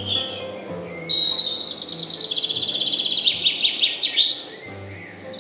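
A songbird sings a fast trill of rapidly repeated high notes. It starts about a second in, runs for about three seconds and grows louder toward its end, after a few softer high calls.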